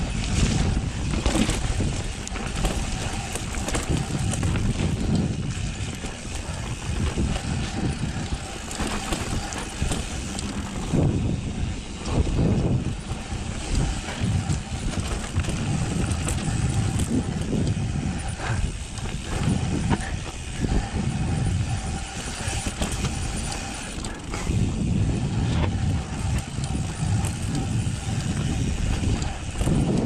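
Mountain bike riding down a steep, rough dirt trail: tyres on dirt and the bike rattling and knocking over bumps, over a heavy low rumble.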